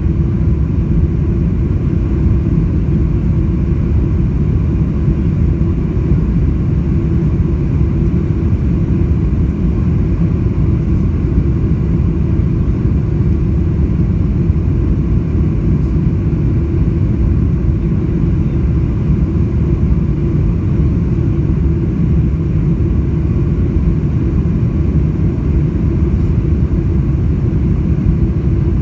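Boeing 747-400 engine and airflow noise heard inside the passenger cabin: a loud, steady, low rumble with a faint steady hum above it, unchanging throughout.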